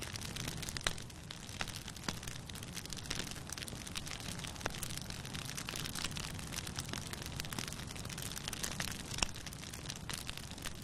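Wood fire burning, crackling with irregular sharp pops and snaps over a steady low rush of the flames.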